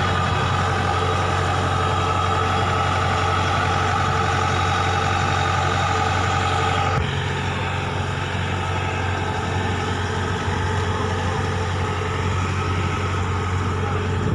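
Diesel engine of a Kubota DC-93 rice combine harvester running steadily at idle. A higher whine drops out abruptly about halfway through.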